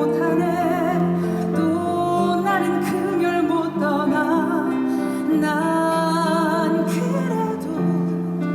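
A stage musical number with a voice singing long notes with vibrato over a steady orchestral accompaniment.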